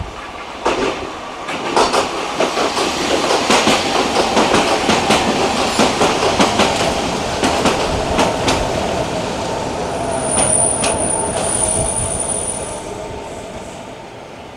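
Sangi Railway 270-series narrow-gauge electric train pulling in and braking to a stop, with rapid wheel clatter over rail joints and the heavy growl of its nose-suspended traction motors. A high, steady wheel squeal comes about ten seconds in as it slows, and the sound fades near the end.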